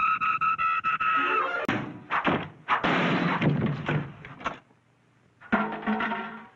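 Cartoon sound effects with orchestral score. A held chord with rattling clicks gives way to a run of sharp knocks and a noisy clatter, ending with a door slamming shut. After a short pause, a character yells near the end.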